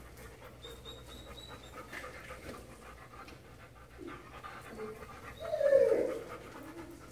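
Dogs at play: steady panting close by, with one short, louder dog vocal sound near the end.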